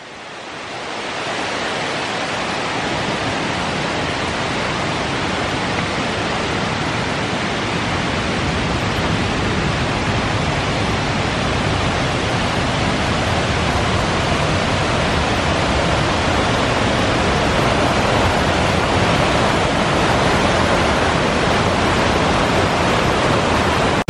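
Kuang Si Falls' cascades rushing steadily, an even wash of falling water that fades in over the first second and grows a little louder toward the end.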